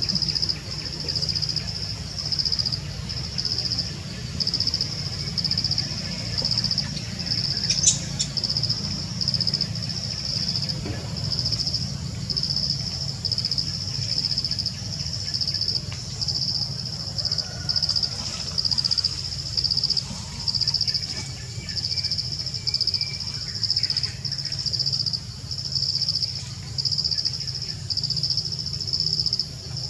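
Forest insect chorus, a steady high-pitched shrill that swells and fades about once a second, over a steady low rumble.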